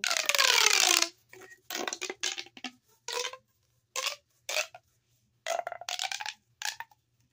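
Plastic pop tube fidget toy being stretched and squashed, its ribbed sections crackling as they pop open and shut. The first stroke is the longest and loudest, with a tone that falls in pitch; several shorter strokes with pauses follow.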